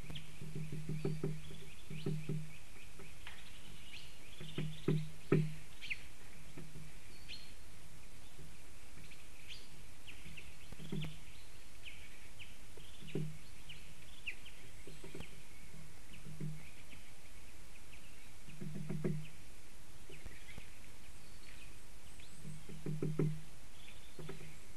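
Small birds chirping in the surrounding forest, with short high calls coming every second or so. Low dull thuds come every few seconds, loudest about five seconds in and again near the end.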